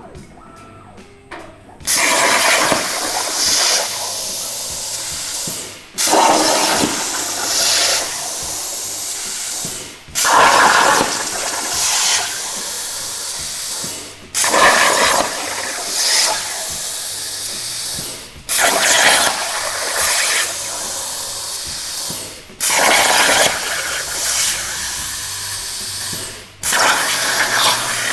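Hypertherm Powermax plasma cutter's arc hissing as the CNC torch cuts steel in a run of separate cuts, each about four seconds long with brief breaks between. Each cut starts with a louder burst as the torch pierces, then a steady hiss, as the holes of a part are cut one after another.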